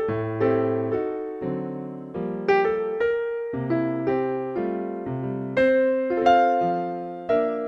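Background piano music: single notes and chords struck one after another, each fading before the next.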